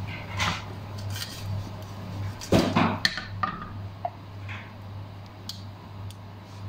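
A metal utensil clinks and scrapes against a frying pan where chicken balls fry in a little oil, with the loudest clatter about two and a half seconds in. A steady low hum runs underneath.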